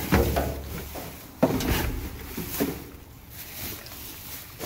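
Plastic garbage bags being shoved and lifted in a dumpster: crinkling plastic with a few dull knocks, the loudest about a second and a half in.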